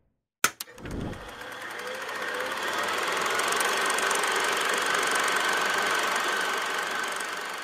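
Intro sound effect for an animated title sequence: two sharp clicks and a low thump about half a second in, then a steady, dense mechanical-sounding noise with a thin high tone held through it, swelling and then fading out near the end.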